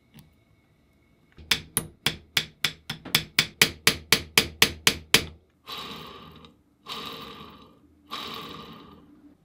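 A hammer struck in a quick run of about seventeen blows, roughly four a second, followed by three longer scraping strokes of about a second each.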